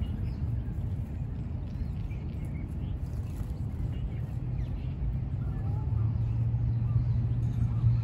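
Outdoor park ambience: small birds chirping faintly and now and then over a steady low rumble. The rumble grows louder about six seconds in.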